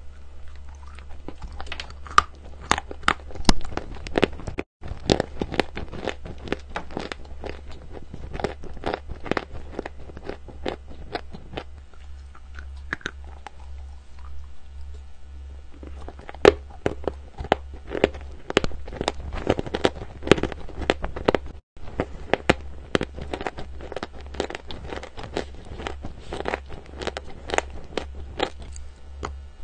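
Chalk being bitten and chewed right at a clip-on microphone: dense, crisp crunches as the teeth break it up, over a steady low hum. The sound cuts out for an instant twice.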